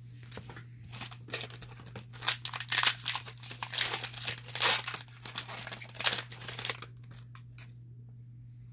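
Foil trading-card pack wrapper being handled: irregular crinkling and tearing from about a second in until about seven seconds, as the pack is torn open and the wrapper crumpled.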